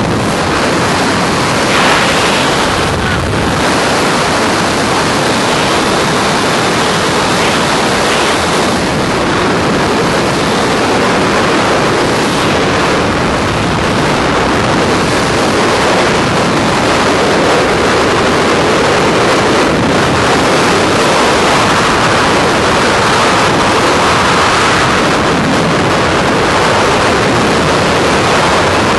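Freefall wind rushing over a skydiver's camera microphone: loud, steady wind noise with no breaks.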